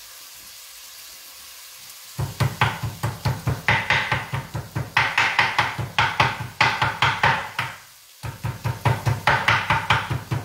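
Kitchen knife rapidly chopping meat on a wooden cutting board, several quick strokes a second, starting about two seconds in with a brief pause near the end. Before the chopping, a faint steady sizzle of the soffritto frying in the pot.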